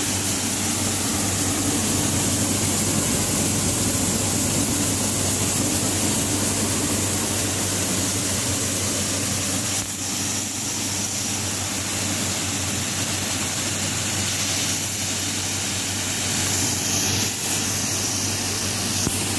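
Wheat cleaning machine running steadily on its electric motor while cleaning grain: a steady hum with a constant hiss over it.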